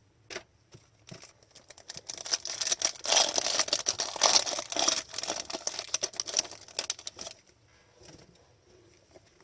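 A foil card pack wrapper crinkling and tearing as it is ripped open, for about five seconds in the middle, with a few light clicks of card handling before it.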